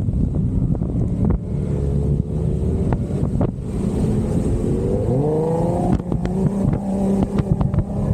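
Jeep Wrangler's engine running off-road, its pitch rising as it revs up about five seconds in and then holding, with wind buffeting the microphone and a few short knocks.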